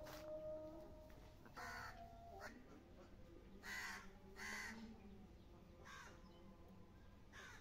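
A bird calling five short times, the calls one to two seconds apart, over a faint, quiet background.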